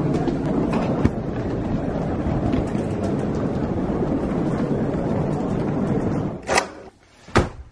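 Baggage trolley wheels rolling steadily over a hard tiled floor, with a constant rumble that cuts off abruptly about six and a half seconds in. Two short, sharp knocks follow.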